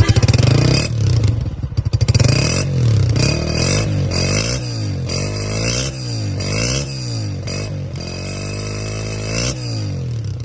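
Honda CG125's single-cylinder four-stroke engine being revved in quick blips, its pitch rising and falling about once a second, with one longer, slower rev near the end.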